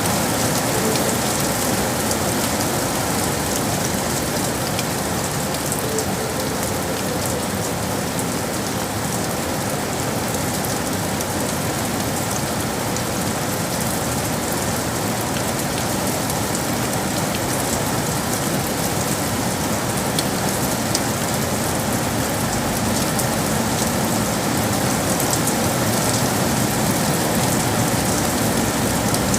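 Steady rain falling on hard surfaces in a city, an even hiss with many fine drop ticks.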